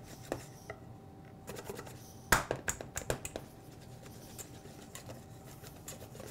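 Wire whisk scraping and clicking against a stainless steel bowl as softened butter and sifted flour are mixed into beurre manié, worked until no longer powdery. The strokes come as irregular quick taps, with the loudest run about two seconds in.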